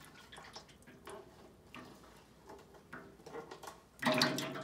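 Filtered maple syrup running out of a clear hose into a stainless bottling tank, with small irregular drips and splashes, then a sudden louder gush of flow about four seconds in.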